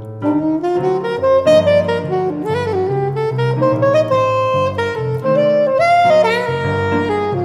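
Jazz soundtrack music: a saxophone plays a melody with sliding notes over a low bass line.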